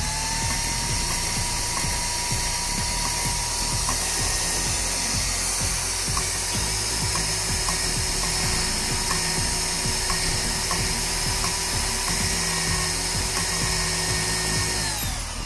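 Electric drill spinning a motorcycle engine valve held in its chuck to polish carbon off it. The motor winds up at the start, runs steadily with a low uneven rattle underneath, and winds down near the end.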